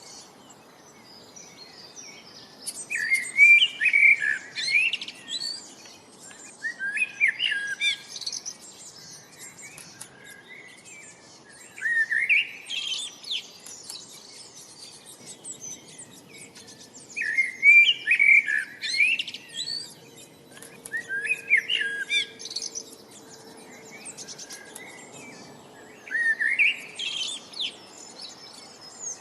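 Birdsong: a songbird repeating a quick, warbling, high-pitched phrase of about two seconds, six times at intervals of four to five seconds, over a faint steady background hiss.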